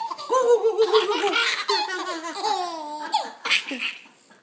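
Baby laughing hard: a long run of high-pitched giggles that dies away near the end.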